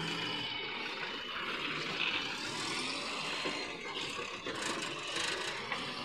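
Tata tipper truck's diesel engine running steadily.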